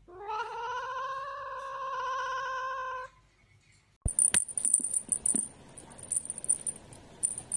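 A cat's long meow that rises in pitch at the start and is then held for about three seconds. After a short pause, a few sharp clicks and a light high rattle follow.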